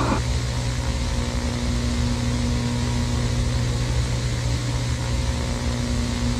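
A steady low droning hum under an even hiss, a dark ambient drone that holds constant without a break.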